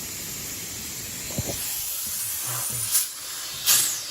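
Nitrogen hissing steadily out of an air-conditioning line set as it is purged through a regulator, blowing out the R11 flush. It spurts louder twice, briefly, near the end.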